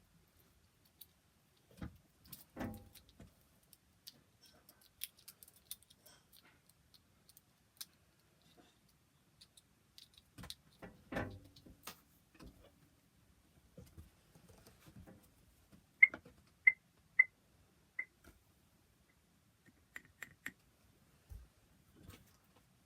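Fidget toys being handled: scattered small clicks, taps and rustles, with a couple of heavier knocks. Between about 16 and 18 seconds in comes the loudest sound, four short, high-pitched chirps at one pitch.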